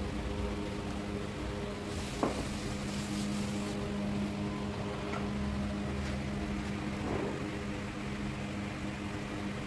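A steady low mechanical hum, like a motor or fan running, with a short knock about two seconds in and a fainter one near the end.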